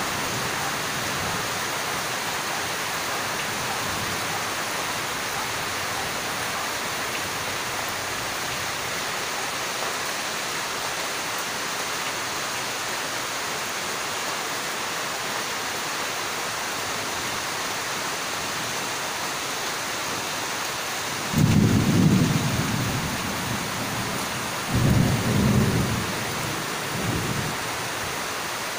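Heavy rain falling steadily, with two low rolls of thunder about three-quarters of the way through and a fainter rumble just after.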